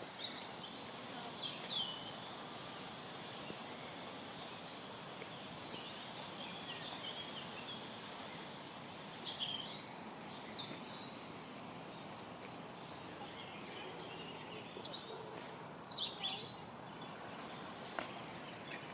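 Forest birds chirping and calling in short bursts, a few times, over a steady background hiss.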